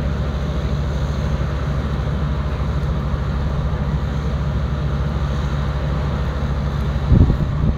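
Airport fire tenders' engines running steadily with a low drone while pumping foam onto a burning aircraft mock-up. A brief low buffeting near the end.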